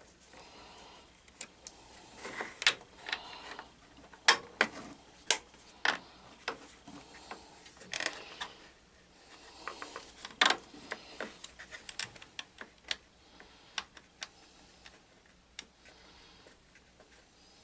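Irregular metallic clicks and knocks of hand tools and parts being handled on a garden tractor, some in quick clusters.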